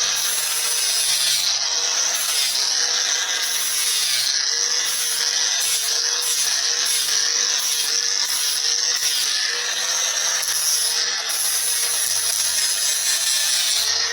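Angle grinder running steadily against steel, grinding down a fresh weld, with a constant motor whine under the grinding hiss.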